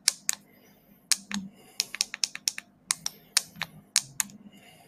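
Typing on a computer keyboard: quick, irregular keystrokes in short runs with brief pauses between them, entering a login password.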